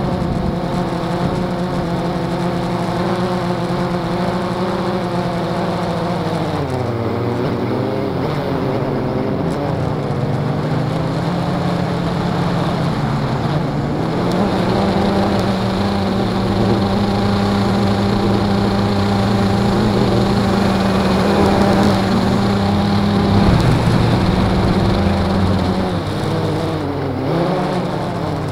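Blade 350 QX quadcopter's electric motors and propellers buzzing, heard up close from on board the craft. The pitch dips about seven seconds in, climbs back around fifteen seconds, and drops and wavers again near the end as the motor speeds change with the craft's manoeuvres.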